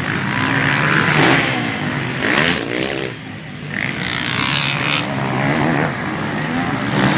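Motocross dirt bike engines revving, rising and falling in pitch as the bikes race round the dirt track. There is a short dip in the sound about three seconds in.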